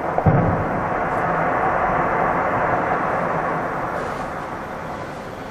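Aerial fireworks: a single low boom just after the start, then a rolling rumble of bursts and echoes that slowly dies away as the display thins out.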